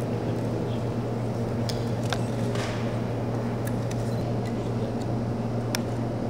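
Wooden disc-wheels rolling on a concrete floor: a steady low rumble over a constant low hum, with a few sharp clicks.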